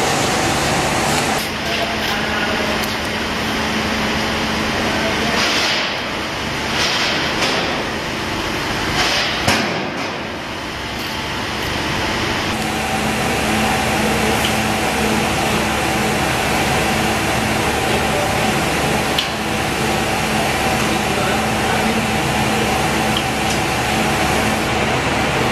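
Steady hum and hiss of workshop background noise, with a few sharp knocks and clicks of steel shelf-frame parts being fitted in the first half.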